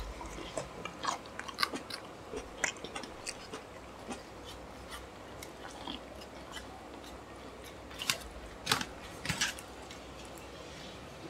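Two people eating rice and chicken curry with their hands: chewing and biting with short crunchy clicks, scattered throughout and thickest about eight to nine and a half seconds in.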